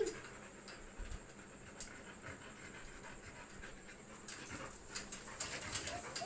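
Dogs panting as they play-wrestle, the panting quicker and louder over the last two seconds, with a short whine right at the start.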